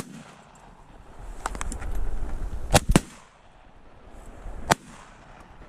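Shotgun shots at a passing duck: one sharp blast at the start, two more in quick succession about three seconds in, and a quieter one near the end.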